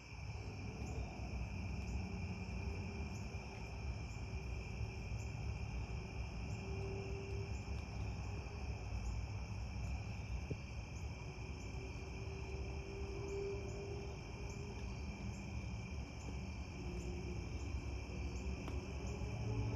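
Crickets chirring at dusk: a steady high trill with regular faint chirps over it, above a low steady rumble.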